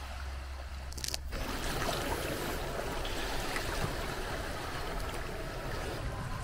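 Seawater washing and trickling among shoreline rocks, a steady grainy wash.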